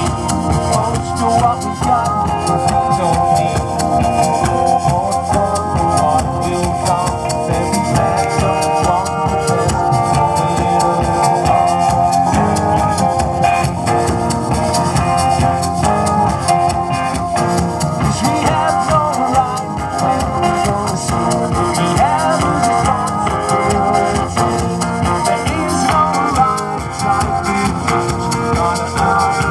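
A live band playing without vocals: a busy, steady beat of percussion under guitar and sustained held notes.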